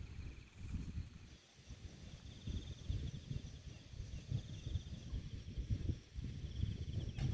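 Gusts of wind buffeting the microphone in uneven low rumbles, with an insect trilling steadily and high from about a second in.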